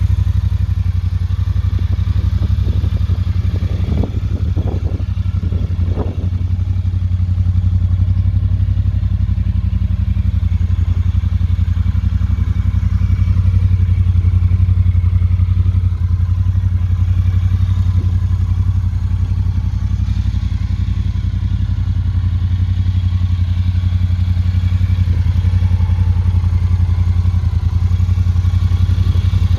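2018 Triumph Bonneville Speedmaster's 1200 cc parallel-twin engine idling steadily, with a few short knocks a few seconds in.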